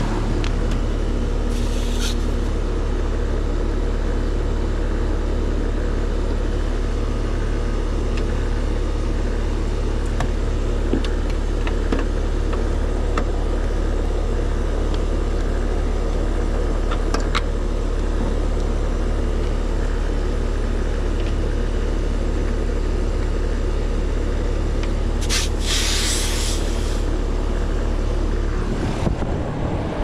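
Heat pump outdoor condenser running in cooling mode: a loud, steady low hum from the compressor and condenser fan. Two brief hisses, one about two seconds in and a longer one about 25 seconds in, and a few light clicks sound over it.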